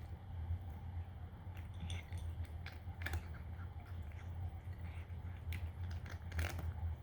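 Cat crunching dry kibble: irregular sharp crunches and chewing clicks, a few seconds apart, over a steady low hum.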